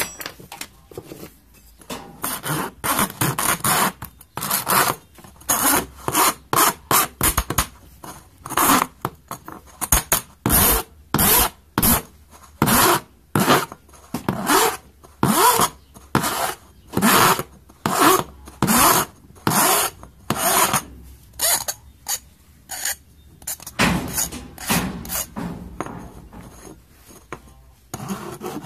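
Hand file rasping back and forth across the cut rim of a small steel tomato paste can, deburring the edge left by a rotary-tool cutting wheel. It goes in short, even strokes, about one or two a second, with one brief pause late on.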